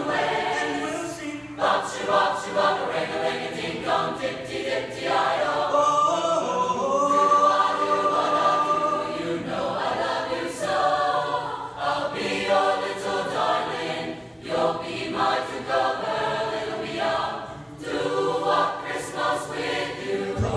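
High school mixed choir singing in parts, in phrases with short breaks.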